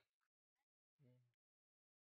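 Near silence.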